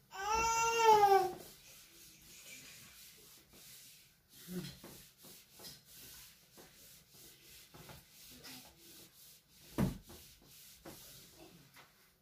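Whiteboard being wiped clean in repeated short rubbing strokes. Right at the start a loud high-pitched squeal lasts about a second, dropping in pitch at the end, and there is a single thump near ten seconds.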